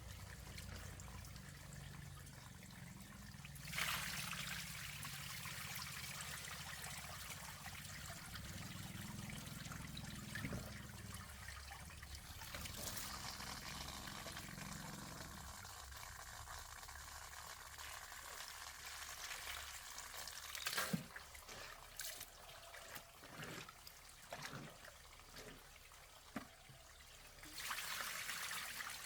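Water running and pouring in short spells, with a low steady hum through the first half and a few sharp knocks and clicks toward the end.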